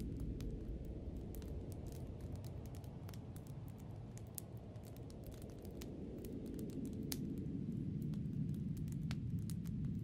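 Snowstorm wind, a low rushing sound that eases about halfway through and builds again near the end, with scattered light ticks and clicks throughout.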